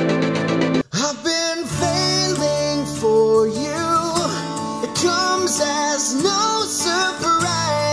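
Music played through studio monitor speakers and picked up by room microphones. An electronic track cuts off a little under a second in. A song with a singing voice over guitar then begins.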